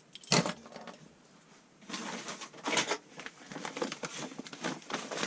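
Small objects being handled and set down: a single knock about a third of a second in, then about two seconds in a run of irregular clicks, rattles and rustling.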